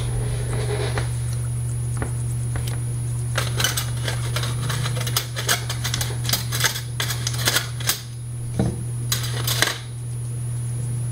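Small metal parts clicking and clinking as they are handled, a quick run of clicks lasting several seconds, over a steady low hum.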